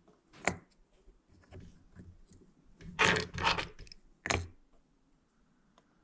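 Small plastic parts of a mower ignition switch clicking and scraping as they are fitted back into the switch housing: a sharp click about half a second in, a louder scraping rub around three seconds in, and another click a second later.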